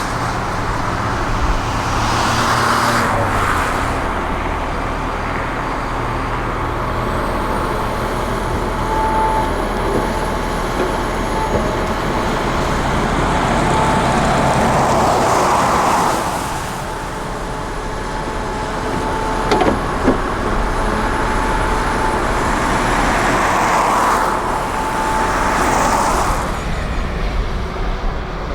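Excavator diesel engine running under work, with a thin hydraulic-style whine and swells in level a few times as the machine works. There is one short sharp knock about two-thirds of the way through.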